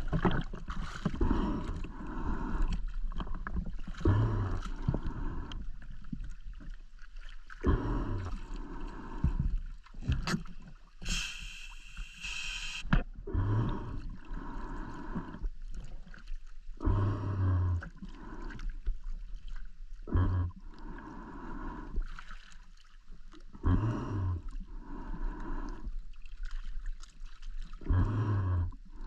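Scuba diver breathing through a regulator, with exhaled bubbles rumbling and gurgling in a repeating cycle about every three and a half to four seconds. About halfway through comes a longer, higher hiss lasting about two seconds.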